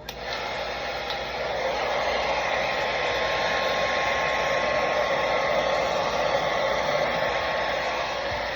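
Handheld blow dryer switched on, rising over the first second or so to a steady, loud rush of air on low speed and high heat.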